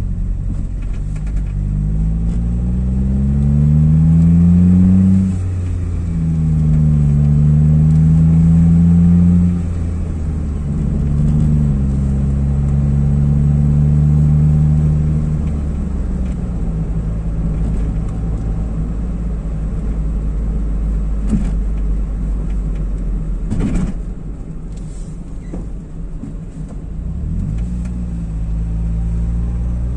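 Car engine heard from inside the cabin while driving, rising in pitch as the car accelerates and dropping back twice at gear changes, then holding steady before easing off and getting quieter. A single sharp click comes about three-quarters through, and the engine picks up again near the end.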